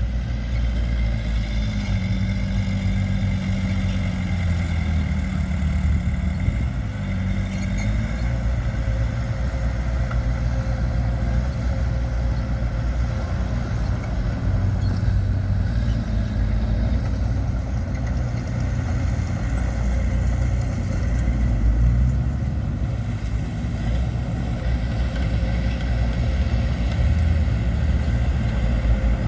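Heavy earthmoving machinery, bulldozers and dump trucks, with their diesel engines running steadily under load. The engine pitch rises and falls during the first several seconds.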